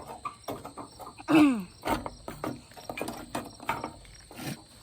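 A series of clicks, knocks and light rattles as a band-saw blade is handled and fitted onto the sawmill. About a second and a half in there is one short, loud call that falls in pitch.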